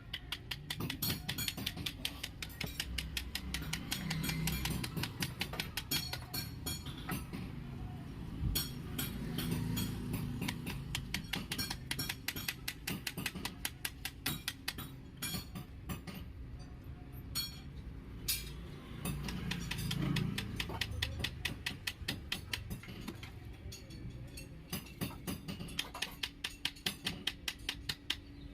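Background music with a fast, steady clicking beat.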